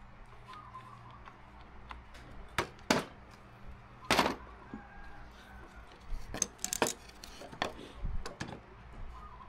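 Woodworking clamps being released and handled on a wooden bench: a quick-release bar clamp and an F-clamp giving a scattered series of sharp clicks and knocks over a faint low hum.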